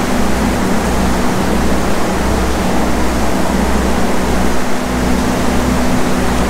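Electric fans running with a steady motor hum and a loud, even rushing of air, with a low rumble that swells and fades about once a second.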